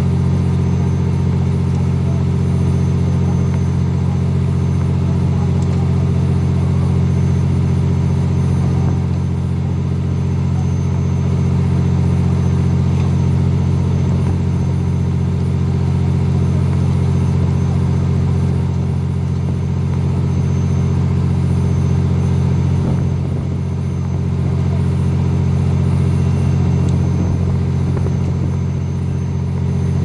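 A fishing boat's engine running steadily: an even, deep hum that holds the same pitch throughout, dipping slightly in loudness twice near the end.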